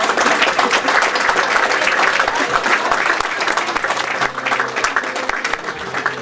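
Audience applauding, the clapping loud at first and thinning out over the last couple of seconds.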